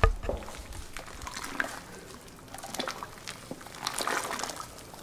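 Wooden stirring stick churning and scraping a batch of JADAM sulfur (sulfur, caustic soda and water) as it dissolves in the heat of the reaction: liquid sloshing with scattered knocks, and a low thump right at the start as the stick strikes the bottom.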